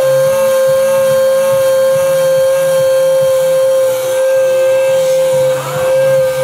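Steady high-pitched electric whine from radio-controlled scale construction models, with a low uneven hum underneath.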